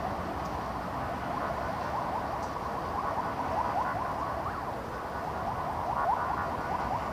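Distant emergency-vehicle siren sweeping rapidly up and down in a fast yelp over the steady hum of city traffic.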